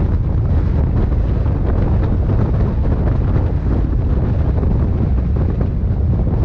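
Loud, steady wind buffeting the microphone, a low rumble with no breaks.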